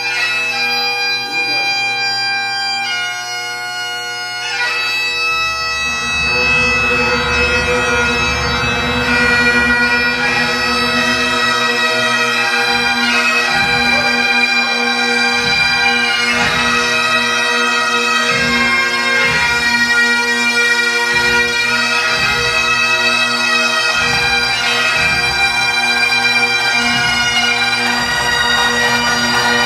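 Bagpipes playing a slow melody over their steady drones. From about five seconds in, low thuds sound underneath at irregular intervals.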